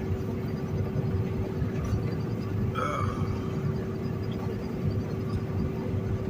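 Semi-truck driving on a rain-wet highway, heard from inside the cab: a steady low engine and road rumble with a faint steady hum. About three seconds in, a brief higher sound stands out over it.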